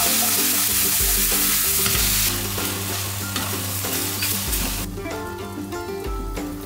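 Onions, green peppers and button mushrooms sizzling in a stainless steel frying pan as tomato sauce is stirred through them with a wooden spatula. The sizzle is strongest for the first two seconds or so, then dies down, leaving softer stirring near the end.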